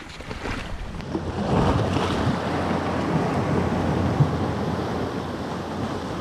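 Sea water washing against a stone seawall, a steady noise that grows a little about one and a half seconds in, with wind on the microphone.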